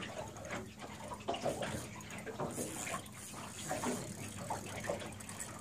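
Water lapping and splashing against the side of a small boat, an irregular, uneven wash.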